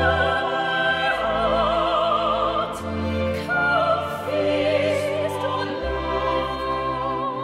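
Classical music for voice and orchestra: a soprano sings long held notes with a wide vibrato over held orchestral chords, changing pitch about every one to two seconds.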